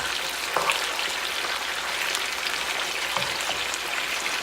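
Chicken thighs sizzling in olive oil in a frying pan: a steady hiss with small crackles and pops.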